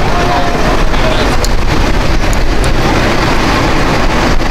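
Wind buffeting the microphone in a steady, loud rumble, with brief faint voices of people walking by near the start.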